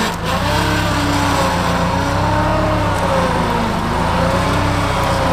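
Mahindra compact tractor's diesel engine running under load as it drives with its front loader, the engine pitch rising and falling.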